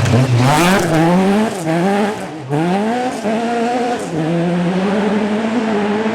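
Ford Escort rally car engine revving hard, its pitch climbing and dropping several times through gear changes, with a brief lift off the throttle about two seconds in.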